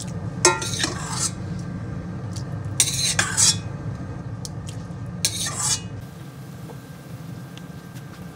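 A metal spoon stirring in a pot of broth, scraping and clinking against the side in four short bursts over a steady low hum. About six seconds in it changes to the quieter, even bubbling of the soup boiling.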